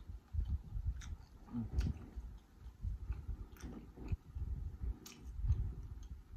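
Close-miked chewing of a mouthful of Cajun-butter-sauced sweet corn kernels. The mouth works steadily, with sharp mouth clicks every second or so.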